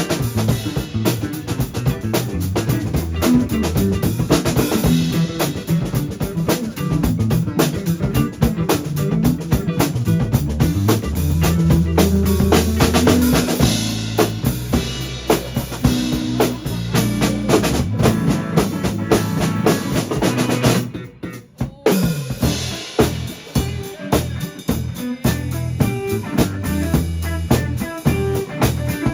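Band music led by a drum kit playing a steady beat, with kick, snare and rimshots over low bass notes. It breaks off briefly about three quarters of the way through, then picks up again.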